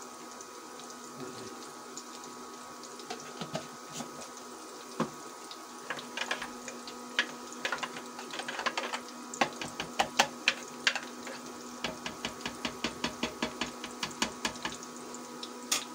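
Metal spoon stirring yogurt and spices in a plastic blender jar, clicking and tapping against the jar in a fast run of about four or five strokes a second through the second half. A steady hum runs underneath.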